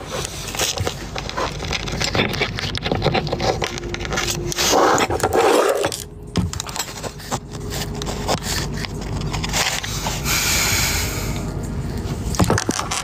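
Handling noise from a phone being moved about: scraping and rubbing against the microphone with many scattered clicks and knocks, a louder rub about five seconds in and a hissing rustle around ten seconds.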